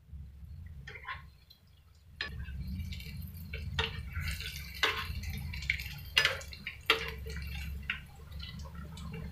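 Lauki (bottle-gourd) kofta balls deep-frying in hot oil in a kadhai. The sizzle grows louder about two seconds in, with irregular sharp clicks and crackles as a spoon turns the balls in the pan.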